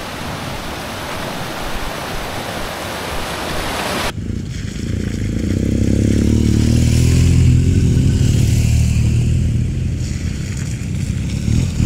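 A mountain stream rushing over rocks, cut off sharply about four seconds in. Then several off-road motorcycles ride along a muddy dirt track, their engines running with a low drone that grows louder as they approach and stays loud.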